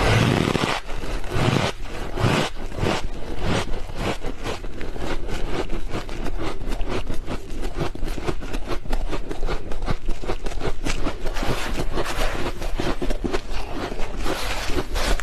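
Close-miked freezer frost crunching, a dense run of many small squeaky crunches packed close together, with a few heavier crunches in the first couple of seconds.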